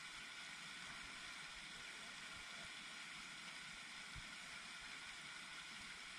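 Steady hiss of water spraying from pond fountain aerators, with a couple of faint low bumps about halfway through.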